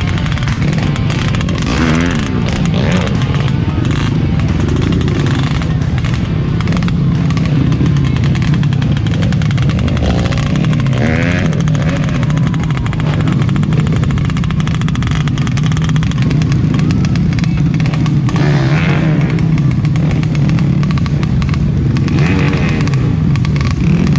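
Trail motorcycle engine running steadily, with a few brief rises and falls in pitch.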